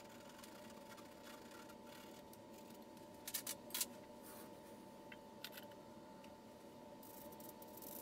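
Quiet small-room tone with a steady electrical hum. A quick cluster of sharp clicks comes about three and a half seconds in, and a fainter tap follows a couple of seconds later.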